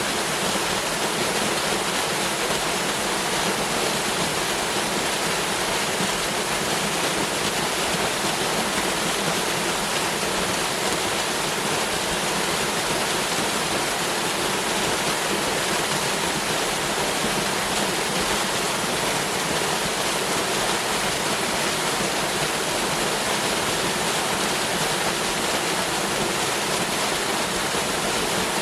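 Waterfall: water falling and rushing in a steady, unbroken hiss with no changes.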